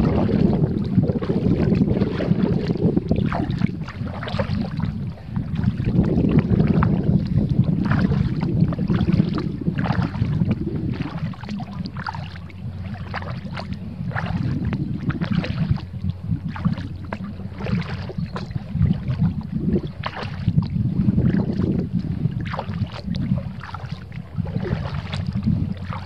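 Kayak paddle splashing and dripping in river water in short, irregular splashes, under a steady low rumble of wind buffeting the microphone.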